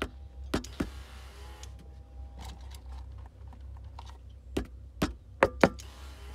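A fist knocking on the boat's engine computer (PCM) on the back of the GT-40 engine: one knock at the start, two more within the first second, then four in quick succession near the end, over a steady low hum. Knocking the computer makes the fuel pump system cut in and out, which the owner took as a sign of a fault inside the computer, later traced to a broken capacitor lead on its circuit board.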